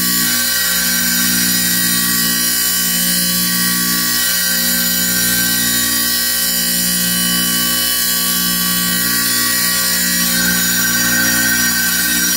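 Wet tile saw running, its blade spinning: a steady motor hum that wavers slightly about every two seconds, with a hiss over it.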